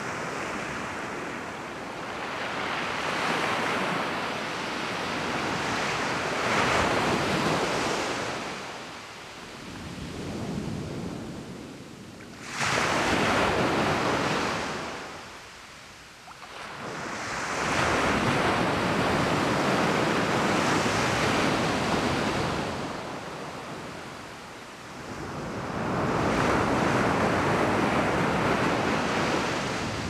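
Surf breaking on a sandy beach: waves wash in and fade away in slow surges every several seconds, with one sharper, sudden break near the middle.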